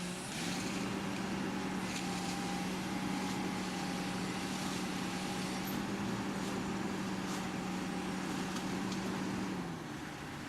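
A steady motor hum starts about half a second in, holds one even pitch, and cuts off a little before the end, with a few faint clicks over it.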